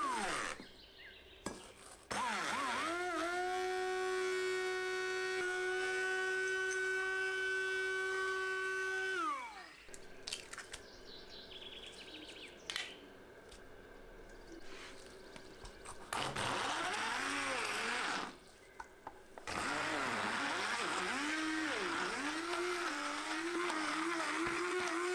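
Immersion (stick) blender running in a glass bowl: the motor spins up to a steady whine as it grinds sugar with mint leaves, then winds down after about seven seconds. After a quieter stretch with a few clicks, it runs again near the end with a wavering pitch as it churns butter, egg and sugar.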